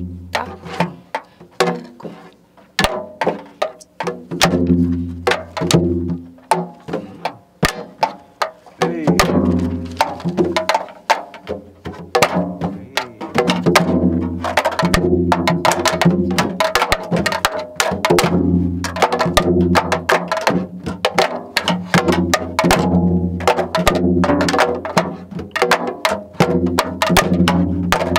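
Janggu (Korean hourglass drum) played in a jungjungmori rhythm: deep, resonant strokes on the low-pitched head mixed with sharp, high clicks of the thin stick on the other head. It comes in spaced phrases at first and, about halfway through, becomes a dense, continuous run of strokes.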